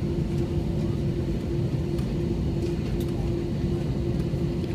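Cabin noise inside a US Airways Airbus A321: the jet engines give a steady low rumble with a constant hum running through it.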